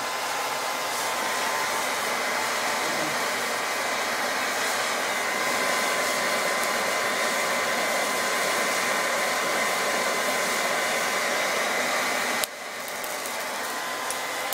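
Steady rushing air and motor whine of an electric blower, hair-dryer type, forcing air into a small homemade furnace. About 12.5 s in there is a click and the sound drops to a lower level.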